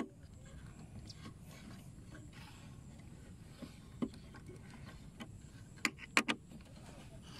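Scattered metallic clicks of a folding hex key set being handled while bolts are loosened: one sharp click about four seconds in and a quick cluster of three near the end, over a low steady background hum.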